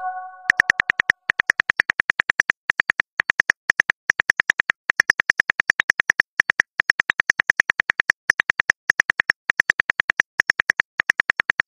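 Phone touchscreen keyboard clicks, rapid and even, in runs with short pauses, as a text message is typed out. A chord from the previous message alert rings out and fades over the first second.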